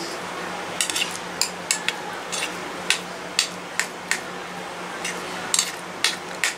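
A steel spoon clinking and scraping against the rim of a steel plate as it presses a soft besan and potato mixture into shape: irregular light clicks, about a dozen, over a faint steady hum.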